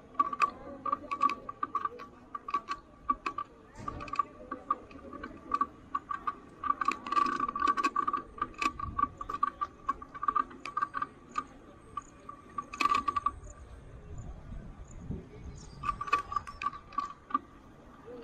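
Bicycle clicking and rattling as it rolls: a fast, irregular run of small metallic ticks with a ringing tone. The ticks ease off briefly about thirteen seconds in and start again about three seconds later.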